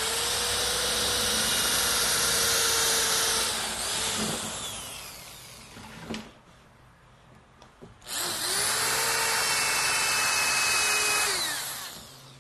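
Power drill with a combination countersink bit cutting countersink holes into a wooden board: two runs of about three and a half seconds each, the motor winding down at the end of each, with a single knock between them.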